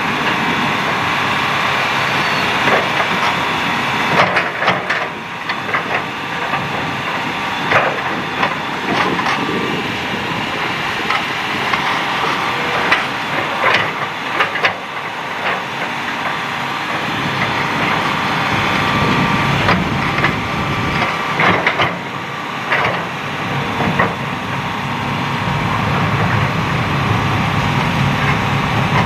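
Hitachi hydraulic excavator's diesel engine running under load, with irregular clanks and scrapes of stone as the bucket digs and dumps sand-and-gravel fill.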